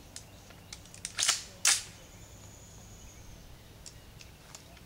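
An AR-15 rifle's action being cycled by hand in a dry function check. A few light metallic clicks are followed, about a second in, by two loud metallic clacks about half a second apart, then more light clicks.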